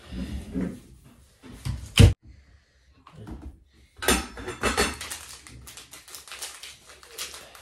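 Knocks and metallic clinking from assembling a white metal bed frame and handling its small hardware: one sharp knock about two seconds in, then a run of clinks and rattles from about four seconds on.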